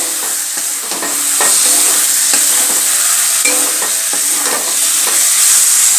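Fried potato wedges and spiced onion-tomato masala sizzling in a metal kadai while a metal spatula stirs them, scraping and tapping the pan irregularly, about once or twice a second. The potatoes are being mixed into the masala as it fries.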